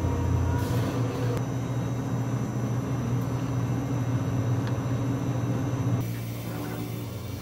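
Steady low machine hum with a rumbling noise, which gets quieter about six seconds in.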